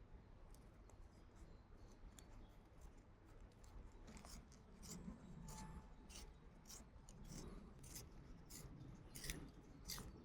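Faint, sharp clicks at an irregular pace, about one or two a second, starting about four seconds in over a quiet, low background.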